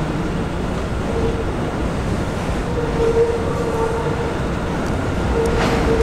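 Kawasaki R211A subway train approaching slowly with a steady low rumble. A held high tone comes in about a second in and grows stronger about halfway through.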